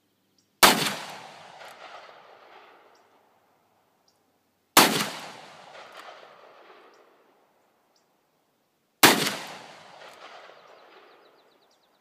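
Three shots from a Smith & Wesson 386XL Hunter .357 Magnum revolver, about four seconds apart. Each sharp report is followed by an echo that fades over two seconds or so.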